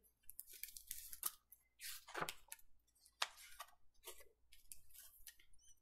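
Picture book being handled and opened, its pages turning: a string of faint rustles and soft taps, with one louder rustle about two seconds in.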